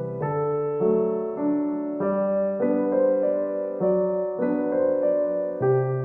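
Background music: soft piano or electric piano playing a gentle melody over sustained chords, with a new note or chord about every half second.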